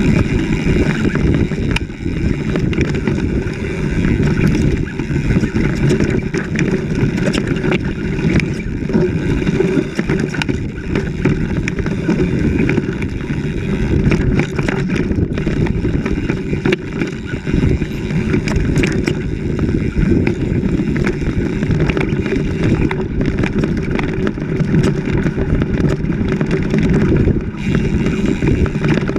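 Off-road vehicle's engine running steadily as it drives along a rough forest track, with scattered knocks and rattles as it goes over bumps.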